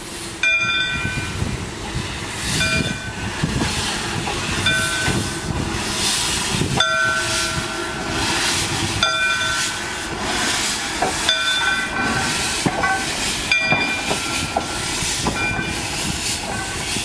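Small 0-4-0T saddle-tank steam locomotive working slowly, exhaust steam hissing from its cylinders in repeated puffs. A short squeal recurs about every two seconds as it moves.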